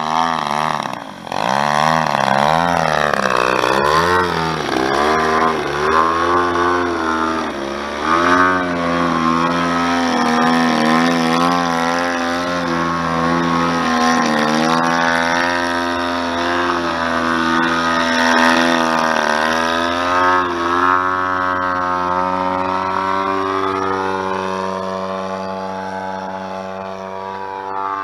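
DLE-111 twin-cylinder two-stroke gasoline engine of a 107-inch Pilot Edge radio-controlled aerobatic plane in flight, its pitch rising and falling with throttle changes and passes through 3D manoeuvres. The note drops briefly about a second in and settles into a steadier, lower drone in the last third as the plane flies farther away.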